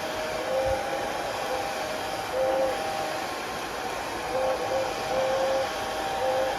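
Steady rushing noise of blowing air, with a faint whine that wavers and comes and goes.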